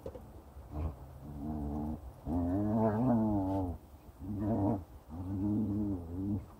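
Animals play-fighting, one growling in four drawn-out low calls with a wavering pitch, the longest and loudest about a second and a half long in the middle.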